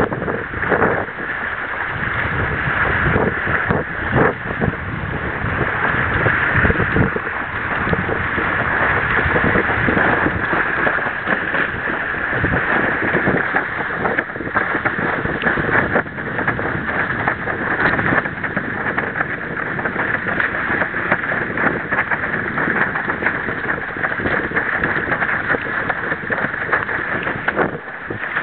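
Wind buffeting the camera's microphone over the steady rush and splash of water under a windsurf board sailing at speed, with irregular gusts and slaps.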